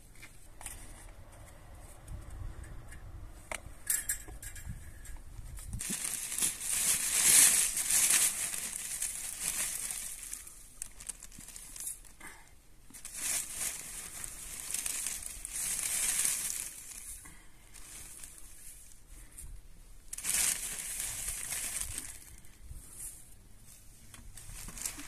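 Black plastic bag rustling as handfuls of dry hay are pulled out of it, in three spells, the first the loudest.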